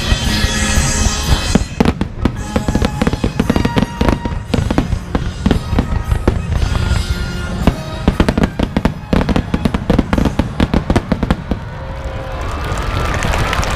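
A rapid barrage of fireworks bursts and crackles over playing music, dense from about two seconds in and dying away near the end.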